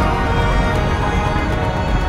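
Background music with sustained notes.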